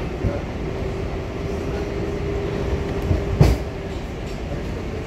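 New York City Subway 7 train running on elevated track, heard from inside the car: a steady rumble of wheels on rail with a faint steady hum. One loud clunk about three and a half seconds in.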